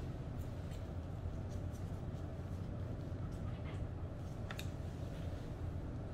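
Grooming shears snipping a dog's long fur around the ear: several quiet snips, some in quick pairs, over a steady low hum.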